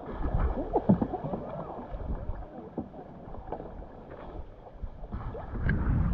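Kayak on the water: paddle strokes and water splashing and moving around the boat, with an uneven low rumble that grows louder near the end.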